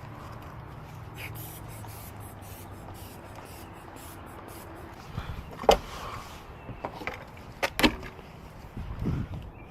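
Sharp clicks and knocks of a locksmith's tools working a locked door, over a steady low hum. Two loud clicks come about two seconds apart past the middle, with a few lighter knocks near the end.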